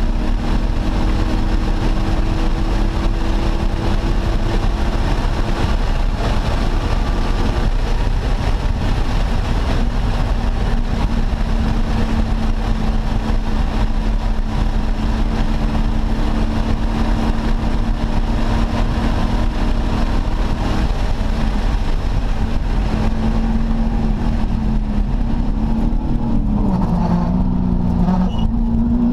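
A 1989 Ford Mustang Fox Body race car's engine running hard on track, heard from an onboard camera with constant wind and road rush. The engine note holds steady for about twenty seconds, then falls and rises several times near the end.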